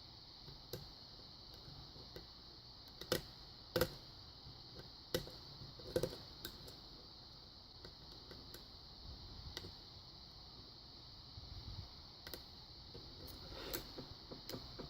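Scattered small sharp clicks and ticks of a lock pick working the pins of a Kwikset pin-tumbler lock under tension, the loudest few coming between about three and six seconds in.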